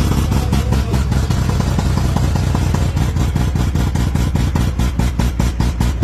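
Modified car engine idling with a lumpy, choppy exhaust: a steady low note chopped into quick, even pulses several times a second, more marked later on.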